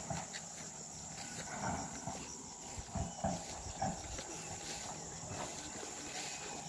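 Faint rural ambience: insects chirping in a rapid, even series of high ticks, with a few soft indistinct animal calls and low rustling of plants and handling.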